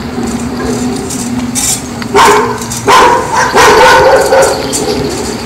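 A dog whining, then barking loudly several times over the second half.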